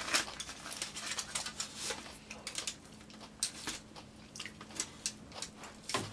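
Close-miked eating sounds: chewing with many small, irregular wet clicks and crackles, as chopsticks pick at a grilled mackerel fillet on aluminium foil.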